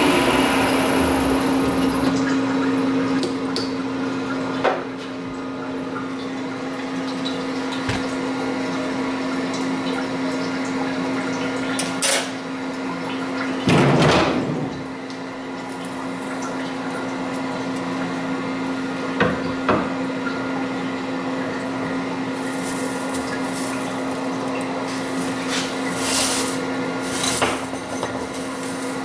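Grizzly G0602 CNC lathe: coolant spraying over the cut dies away in the first couple of seconds, leaving a steady machine hum. Over the hum come scattered knocks and clicks of hands at the machine, with a louder clatter about fourteen seconds in as the enclosure door is opened.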